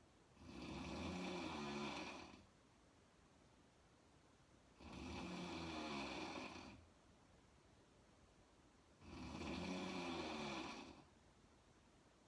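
A woman snoring in her sleep: three long snores about four seconds apart, each lasting about two seconds, with quiet breathing between them.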